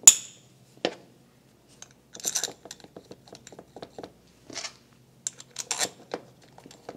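Hand-handling of a Honda GXV530 connecting rod, end cap and cap bolts: a sharp metallic click at the start as the parts come together, a knock just under a second in, then scattered light clicks and short scraping as the cap bolts are fitted and threaded in by hand.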